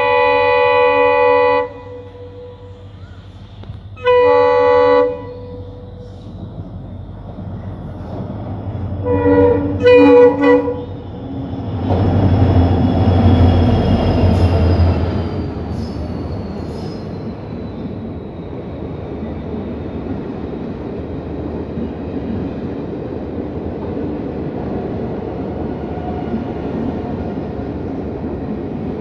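Indian Railways WDP-4D diesel locomotive (EMD 16-cylinder two-stroke engine) sounding its horn: a long blast, another about four seconds in, then two short blasts around nine to ten seconds. The locomotive then passes loudly with a falling whine, and the passenger coaches roll slowly past with a steady rolling noise.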